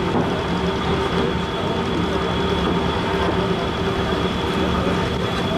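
Ship's engines running steadily: a continuous drone with a thin high whine over it.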